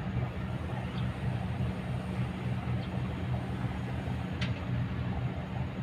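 Kobelco excavator's diesel engine running steadily, with a few faint knocks and one sharp click about four seconds in.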